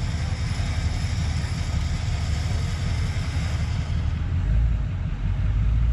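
Ford F450 pickup's engine rumbling low and steady as the truck crawls a tight off-road trail, growing heavier about four seconds in as it takes more throttle. A steady hiss runs over it.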